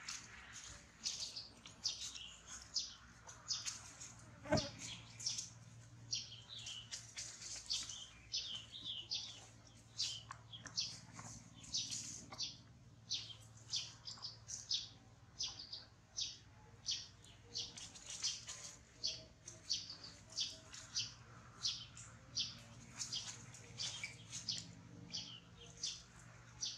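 Small birds chirping continually, several short high chirps a second, with a single sharp click about four and a half seconds in.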